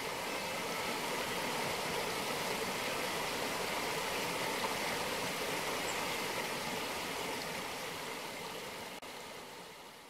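Shallow river rushing over rocks and stony riffles: a steady wash of running water, fading out near the end.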